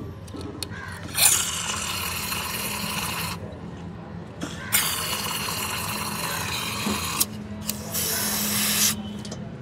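Aerosol cleaner spray can hissing through its red extension straw into a car's throttle body, in three long sprays, the last one shorter: the throttle body being cleaned during a tune-up.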